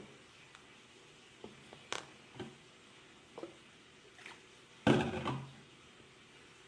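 Spoon stirring a runny slime mixture in a container: scattered light knocks and clicks, with a louder clatter about five seconds in.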